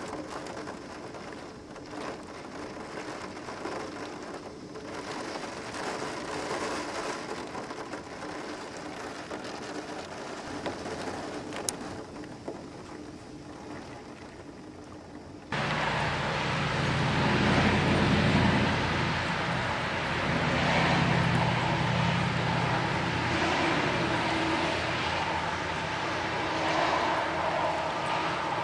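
Steady rush of hurricane rain and wind. About fifteen seconds in it jumps suddenly to a louder, deeper rush that holds to the end.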